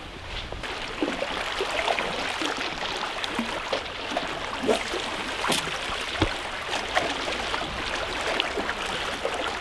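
Water lapping and gurgling against the rocks at the shoreline, a steady wash with many small irregular splashes and clicks.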